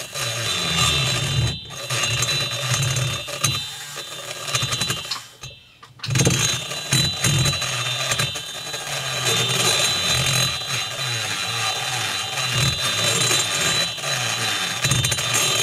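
Dental lab micromotor with a right-angle handpiece spinning a carbide burr, grinding inside a chainsaw cylinder's port: a steady high whine over a rough grinding noise, with the burr chattering against the metal. The grinding stops briefly about one and a half seconds in and again around five and a half seconds in.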